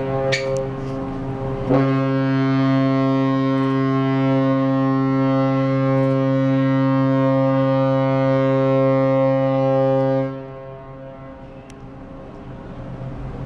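Ship's horn sounding one long, steady, deep blast that swells louder about two seconds in and stops about ten seconds in.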